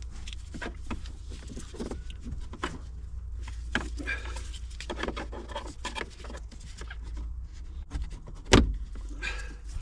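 Plastic centre-console trim of an MG ZS being pried and tugged loose by hand: irregular clicks, creaks and knocks, with one sharp loud knock near the end, over a steady low rumble.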